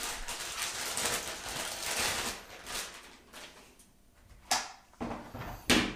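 Plastic packaging rustling as it is handled, then two short sharp knocks as the pistol is lifted out of its plastic hard case.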